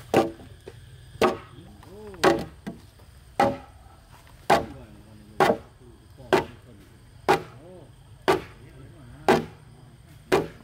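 Steady chopping blows of a hand tool into wood, about one a second, each a sharp crack.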